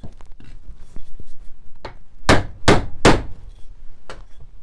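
Wooden mallet striking a chisel wedged into a glued joint of an antique wooden chair's back to drive the joint apart: three hard blows in quick succession about two seconds in, with a few lighter taps around them.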